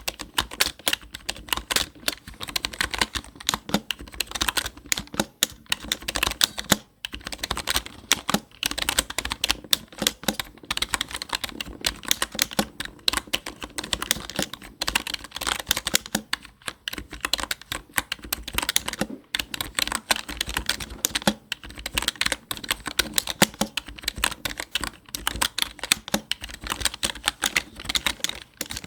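Continuous fast typing on a computer keyboard: a dense stream of key clicks, with brief pauses about seven and nineteen seconds in.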